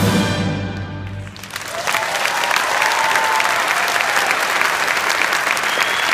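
A full symphony orchestra's final chord rings out and dies away in a large hall. About a second and a half in, the audience breaks into loud applause with cheering.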